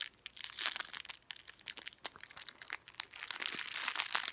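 Plastic packaging crinkling as a squishy toy in its bag is squeezed and handled: a run of irregular crackles and clicks.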